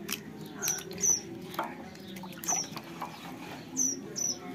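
Water sloshing and splashing in a steel bowl as a hand rubs and swishes bunches of cluster figs to wash off their sticky sap. Several short, high chirps of a small bird sound through it.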